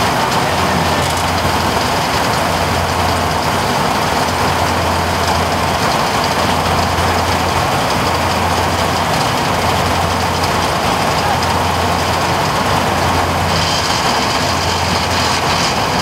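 Crop Star NSG 930 combine harvester running steadily, a constant low engine hum under dense machinery noise, as its unloading auger pours harvested paddy rice into a tractor trolley.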